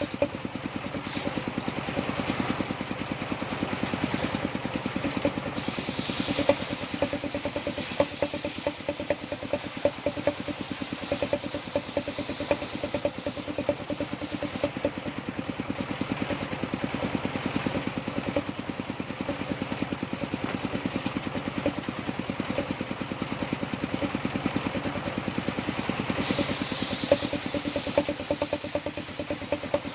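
An engine running steadily with a fast, even beat, most likely the power unit of a timber sawmill.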